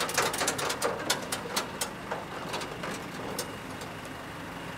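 A quick run of sharp metallic clicks and clanks from a wheel tie-down strap and its ratchet and hooks being worked on a steel flatbed deck, dense for about two seconds, then sparser, stopping a little after three seconds. An engine idles steadily underneath.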